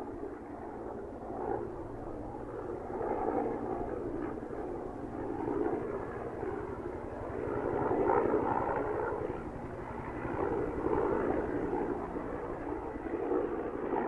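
Helicopter engine sound effect, a steady noisy drone that swells and eases every two to three seconds.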